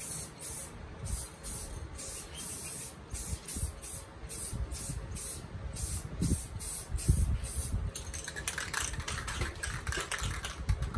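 Aerosol spray can hissing in short repeated bursts as clear coat is sprayed. About eight seconds in, the spraying stops and the can is shaken, its mixing ball rattling.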